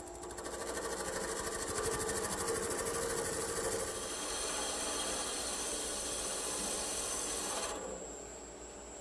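Turning chisel making a shear cut along a spinning blank of green firewood on a wood lathe, a steady scraping hiss of tool on wood that stops suddenly near the end when the tool comes off the work.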